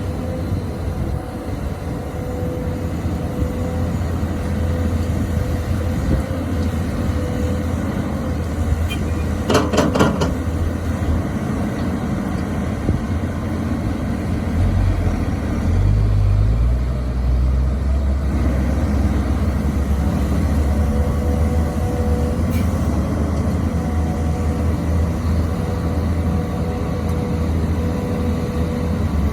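XCMG XE215C excavator's diesel engine running steadily with a constant hydraulic whine, a quick run of metallic clanks about a third of the way in, and the engine note deepening and pulling harder about halfway through as it takes load.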